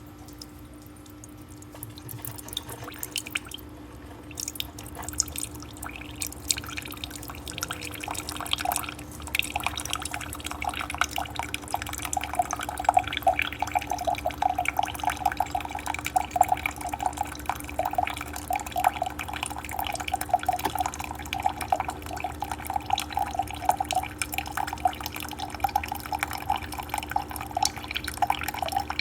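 Keurig K-Supreme single-serve pod coffee maker brewing: a steady low hum from the machine, with coffee dripping and streaming into a cup. The pour starts softly a couple of seconds in and thickens into a steady splashing stream after about nine seconds.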